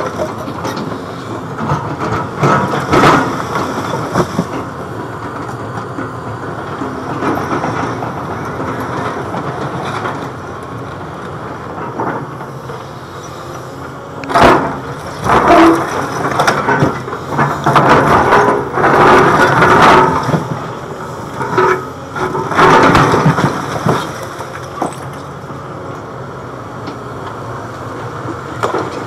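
Caterpillar 329E hydraulic excavator running while its steel bucket scrapes, lifts and drops broken concrete slabs. The loudest sounds are clattering knocks of concrete striking concrete and the bucket, coming in a run of bursts through the second half.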